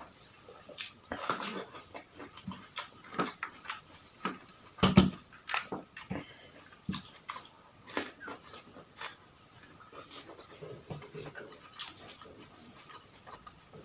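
Close-miked eating sounds: irregular crunching and chewing with wet mouth clicks and smacks. The loudest crunch comes about five seconds in.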